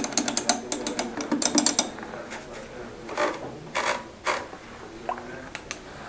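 Keys of an old office typewriter being struck: a quick run of sharp key clacks over the first two seconds, then three heavier mechanical clunks a little past the middle.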